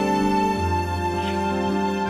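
Background music with long held notes; a low bass note comes in about half a second in.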